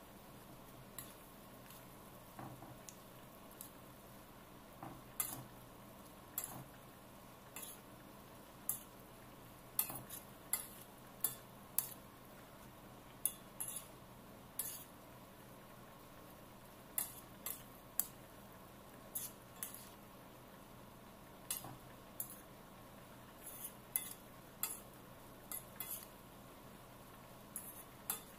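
Metal spoon clinking and scraping against a stainless steel frying pan while stirring a vegetable stir-fry, in light, irregular taps.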